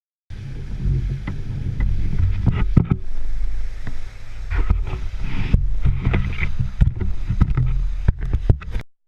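Small boat under way: a loud low rumble with frequent knocks and thumps, starting and cutting off abruptly.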